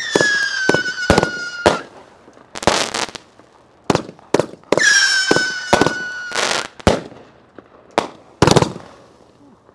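A 500-gram consumer firework cake firing: shots lifting and breaking in sharp bangs, with two whistles that fall in pitch, each lasting about two seconds, one at the start and one about five seconds in. The heaviest bang comes near the end.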